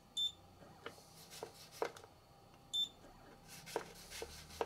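Anycubic Photon S touchscreen beeping twice as buttons are pressed, short high beeps about two and a half seconds apart. Between them come soft knocks and paper rustles from handling the levelling paper under the build plate.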